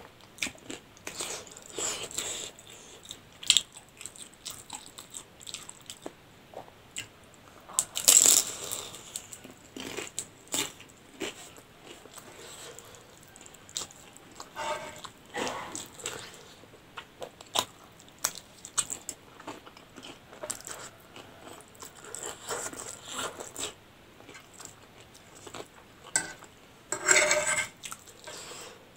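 Close-miked eating sounds: irregular crunching bites and chewing of a crispy fried dumpling and noodles, with mouth clicks between bites. Louder bursts of crunching come about eight seconds in and again near the end.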